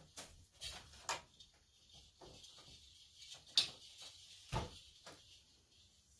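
Wooden loom being handled while warp ends are shaken out behind the reed: scattered light knocks and taps on the wood, with a sharper click about three and a half seconds in and a duller thump about a second later.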